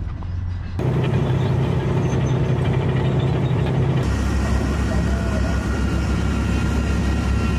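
Heavy military vehicle engine running steadily. Its tone changes abruptly about a second in and again about four seconds in.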